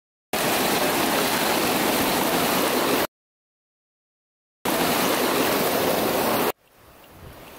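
A loud, even rushing noise in two stretches that cut in and out abruptly with a gap of silence between, followed near the end by a much quieter rushing sound fading up.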